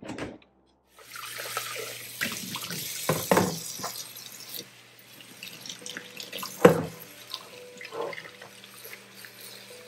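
Kitchen sink tap running, starting about a second in and shutting off after a few seconds, with knocks and clunks of things being handled in the sink. A loud clunk comes near the seven-second mark, followed by lighter clatter.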